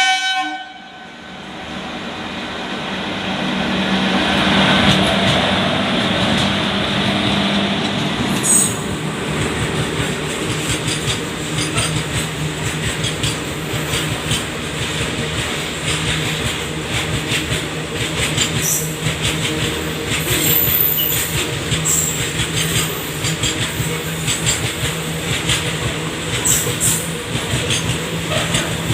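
A goods train hauled by two locomotives passing at speed: a horn blast cuts off right at the start, the locomotives' steady hum builds as they draw near, and then the wagons go by with a long, steady rattle and clickety-clack of wheels over rail joints.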